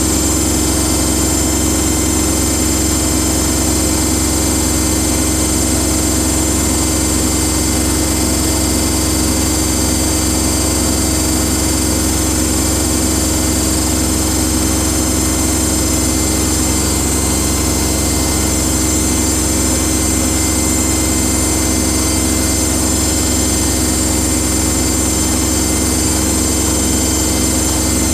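Samsung washing machine in high-speed spin at about 1,350 rpm, a steady hum and whine from the motor and drum with no change in pitch or level.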